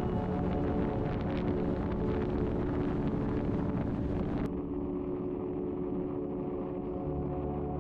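Ambient background music of sustained drone-like tones over a steady rush of car driving noise. The upper part of the sound cuts off abruptly about four and a half seconds in, as at an edit.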